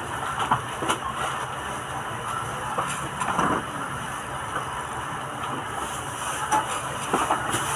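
Steady background din of a busy grocery store, with a few faint clicks and knocks and no clear voices.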